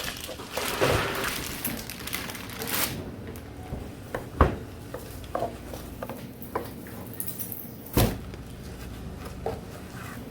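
Intermittent clatter of metal utensils and dishes over a steady background, with a few sharp knocks. The loudest knocks come about four and eight seconds in.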